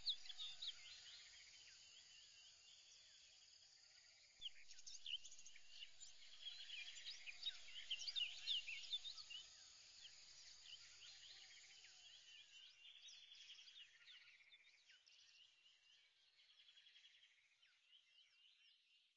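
Faint chorus of many small birds, overlapping high chirps and quick trills, fading out near the end.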